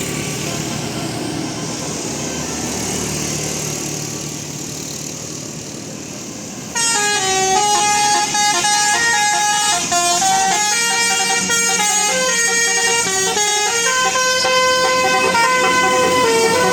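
Steady road-vehicle noise, then about seven seconds in a bus's multi-tone 'telolet' air horn cuts in loud, playing a quick tune of notes stepping up and down.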